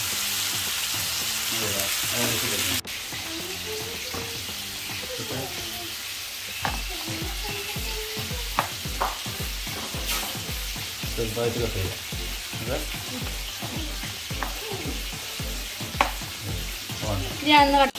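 Chicken pieces sizzling in oil in a frying pan while a spatula stirs them. The sizzle cuts off suddenly about three seconds in. After that come a few sharp knife clicks on a chopping board as a tomato is sliced, over background music with a steady beat.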